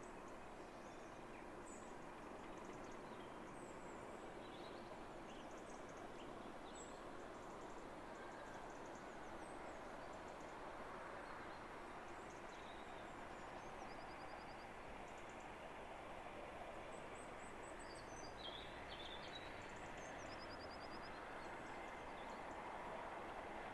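Small birds chirping and twittering over a steady distant rumble that grows slightly louder near the end as a class 37 diesel locomotive approaches.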